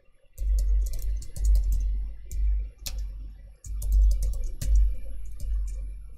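Typing on a computer keyboard: scattered, irregular keystroke clicks, with a deep low rumble underneath that comes and goes.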